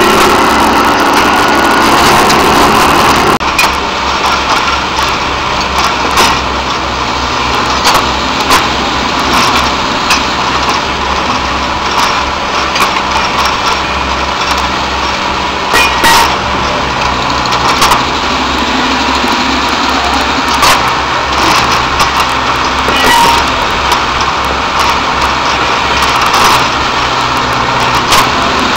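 Engine of a rail-mounted track-maintenance machine running steadily under load, with sharp knocks and clanks at irregular intervals as its hydraulic heads work on the rail and tie plates. A high hiss cuts off abruptly about three seconds in.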